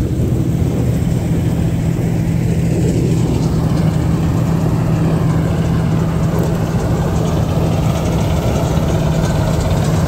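Kartar 4000 combine harvester running steadily, its diesel engine giving a deep, even drone.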